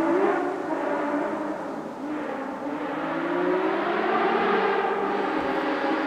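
Rally car engine revving hard as it approaches along the stage, its note climbing for a couple of seconds and then dropping at a gear change.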